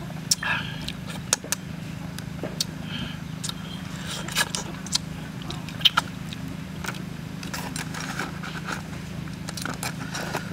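Close-up eating sounds: chewing and biting, with many sharp clicks and crackles, over a steady low hum. Aluminium foil crinkles near the end.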